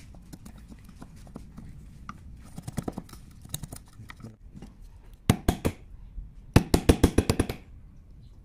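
Hand chisel paring and scraping wood inside the mouth of a wooden hand plane body: sharp clicks and scrapes of the blade against the wood. A few louder strokes come about five seconds in, then a quick run of loud rapid clicks near the end.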